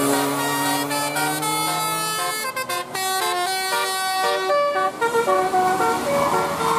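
Basuri multi-tone bus horn playing a telolet melody: a quick run of clear horn notes, stepping up and down in pitch several times a second.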